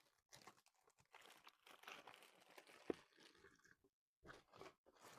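Faint crinkling of a plastic bag of jigsaw puzzle pieces being handled, in short irregular bursts, with one sharp click about three seconds in.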